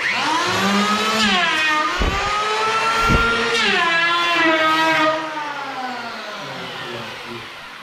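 Electric hand planer switching on and running at speed, its pitch sagging twice as the blades bite into the wooden cupboard edge, with two dull knocks in the middle. From about two-thirds of the way through it winds down, the whine falling steadily as the motor coasts to a stop.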